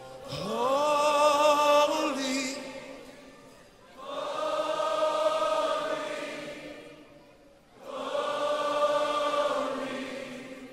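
Sung worship song: voices hold three long drawn-out notes, each swelling and then fading over about three seconds. The first note scoops up into pitch and wavers with vibrato.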